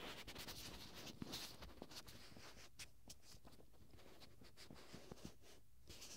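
Gloved fingertips poking and rubbing at the ear of an ear-shaped binaural microphone: faint, irregular soft taps and scratchy rubs of thin plastic glove, heard as if right inside the ear.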